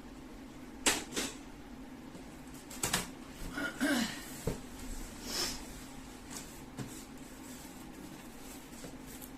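Packaging being handled while unboxing a microwave oven: a few sharp knocks, then rustling and scraping, over a steady low hum.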